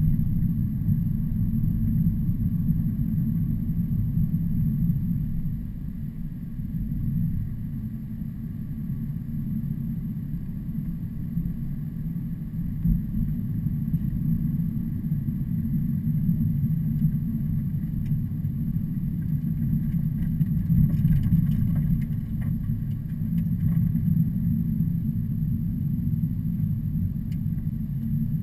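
Heavy truck traffic on a highway grade: engine and road noise as a steady low rumble, easing a little about six seconds in and swelling again later.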